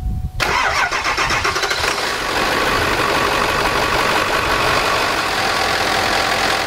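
Ford 7.3 L Powerstroke V8 turbo diesel cranking for about a second and a half, catching, then settling into a steady idle. It is a start on weak batteries, made without waiting for the glow plugs.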